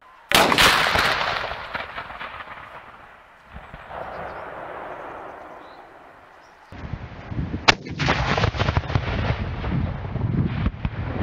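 Blank salute shots from homemade breech-loading salute cannons (50–85 mm calibre). A loud bang comes just after the start and dies away in a long fading echo over a few seconds. A second sharp bang comes about halfway through, followed by uneven rumbling noise.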